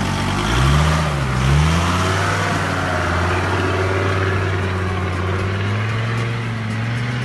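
Off-road 4x4's engine revving up twice in quick succession about a second in, then running steadily with a slight rise in pitch near the end.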